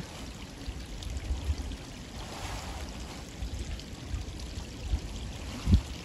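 Stream water pouring and trickling over a beaver dam, under a low rumble, with one sharp thump near the end.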